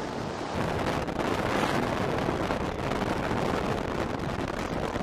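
Steady rushing road and wind noise inside a moving car, an even hiss and rumble with wind buffeting the microphone.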